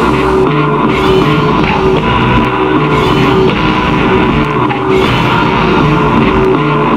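Loud rock-style music, dense and steady, built on a repeating figure of held notes.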